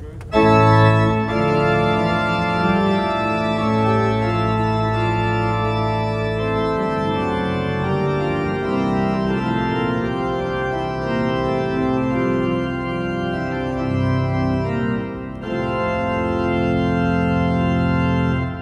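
Pipe organ played in sustained full chords, entering loudly about half a second in and moving from chord to chord, with a short dip near the end before a final held chord is released.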